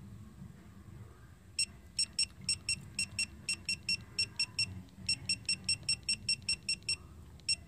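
Digital torque wrench beeping once for each button press: a quick run of short, high beeps, about four a second with a couple of brief pauses, starting about a second and a half in, as the torque setting is stepped down one unit at a time.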